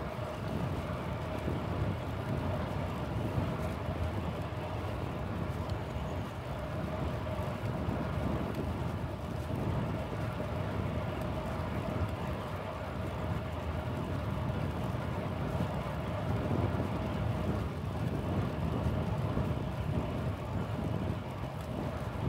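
Wind buffeting the microphone and road rumble while riding a bicycle through city traffic, a steady wash of noise with a faint, steady mid-pitched hum underneath.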